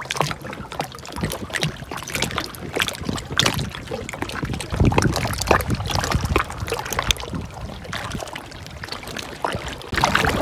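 Shallow seawater splashing and sloshing as someone swims through it, in irregular small splashes with a few heavier surges about halfway through.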